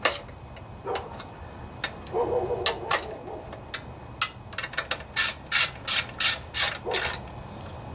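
Ratchet wrench clicking as bolts are run down on a Briggs & Stratton lawnmower engine. A run of quick, evenly spaced clicks comes near the end, with scattered clicks and a short metal scrape before it.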